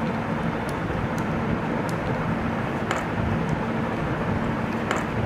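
Steady background hum and hiss, with two faint clicks about three and five seconds in as a small screw and screwdriver are handled.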